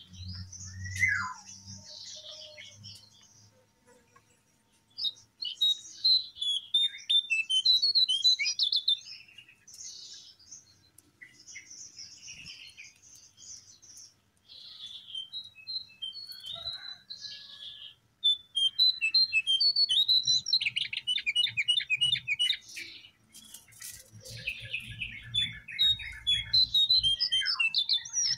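Lesser shortwing (cingcoang coklat, jongkangan) singing: bursts of rapid, high twittering notes and fast trills, broken by short pauses.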